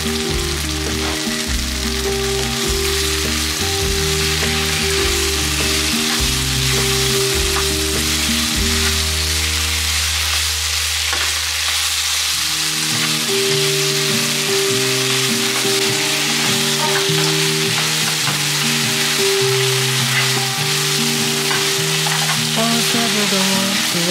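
Shrimp and bok choy sizzling steadily as they are stir-fried in a nonstick frying pan and turned with a utensil, over background music.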